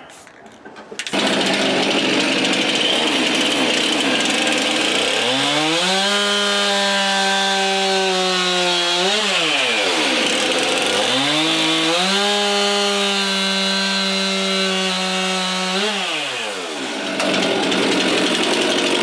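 Gas chainsaw starting about a second in at high revs and cutting into a wood block to rough out a carving. The engine speed drops and climbs back about ten seconds in, drops again near the end, and the cutting goes on.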